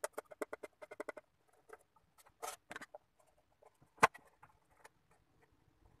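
Plywood box and wooden parts handled on a tabletop: a quick run of small clicks and rattles, a couple of scrapes, then one sharp knock of wood set down about four seconds in.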